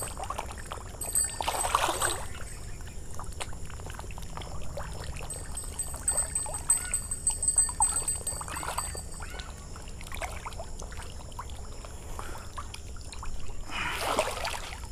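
Pangasius catfish splashing and churning the water surface as they feed on floating pellets, with louder splashes about two seconds in and again near the end.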